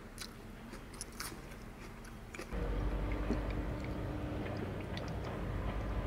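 A person chewing a mouthful of seasoned greens, with many small wet mouth clicks. About two and a half seconds in, a steady low rumble sets in suddenly and becomes the loudest sound.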